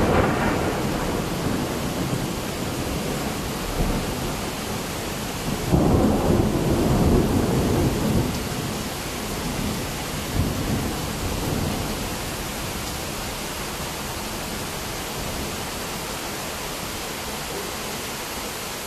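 Thunder over steady rain. A rumble is dying away at the start, a new rumble breaks about six seconds in, and smaller rolls follow a few seconds later before the rain hiss carries on alone.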